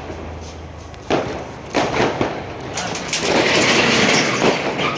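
Diwali firecrackers going off: a few sharp bangs in the first half, then about a second of loud rushing, crackling noise.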